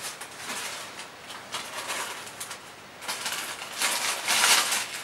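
Thin plastic gloves from a hair-dye kit rustling and crinkling as they are pulled onto the hands, louder near the end.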